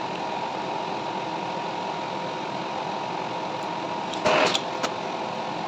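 Metal-turning lathe running with a steady mechanical hum and a faint even whine. About four seconds in there is a short, loud, harsh burst, followed by a single sharp click.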